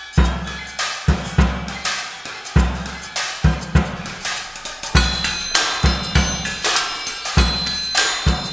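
A percussion groove kicks in at once: a kick drum on a repeating beat with snare-like hits and cymbal, mixed with struck metal sheet panels. From about five seconds in, high metallic ringing tones sound over the beat.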